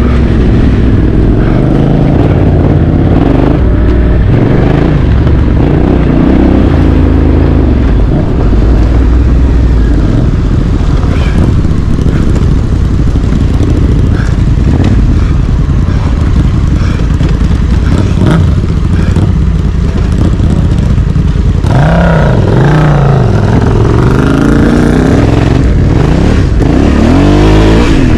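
Honda Africa Twin CRF1100 DCT's parallel-twin engine being ridden off-road over a loud low rumble. Near the end the engine note rises and falls repeatedly with the throttle.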